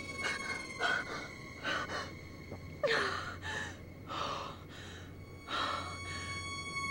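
A person gasping for breath: a string of short, sharp gasps about once a second, one stronger gasp about three seconds in, over a faint steady high tone.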